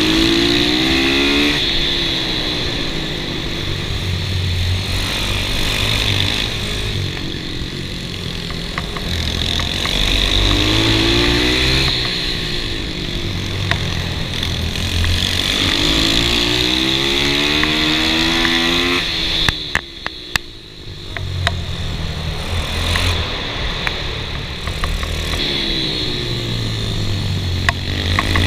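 Kawasaki KLX110 pit bike with a 143 cc big-bore kit, its single-cylinder four-stroke engine ridden hard. The engine note climbs again and again as the throttle is opened out of each corner, and drops away briefly about two-thirds of the way through.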